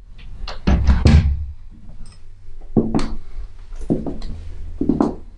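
A door being handled, with a string of knocks and thuds over a low steady hum.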